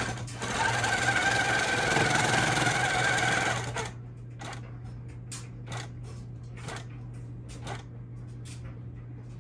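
Baby Lock Regalia longarm quilting machine stitching at speed under computer guidance, a loud steady run, on the last of an edge-to-edge pattern. About four seconds in the running stops suddenly, and sharp clicks follow roughly once a second over a steady low hum.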